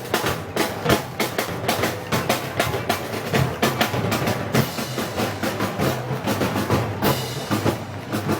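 Live festival band music driven by drums and percussion, with a dense, steady run of drum strokes several a second over low sustained tones.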